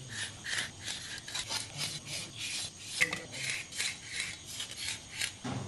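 A knife scoring pearl spot (karimeen) fish for frying: a quick series of short scraping cuts across the scaly skin, about three a second.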